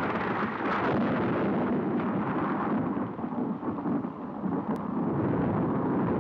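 Steady rumble of a car driving at night, engine and road noise as heard from inside, with a single brief click just before five seconds in.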